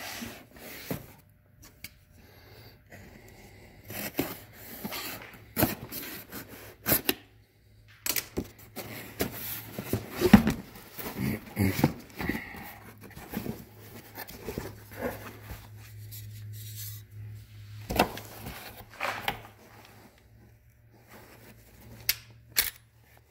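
Handling noises: rustling, scraping and irregular clicks and knocks as packaging and AR-15 upper assemblies are handled, over a low steady hum.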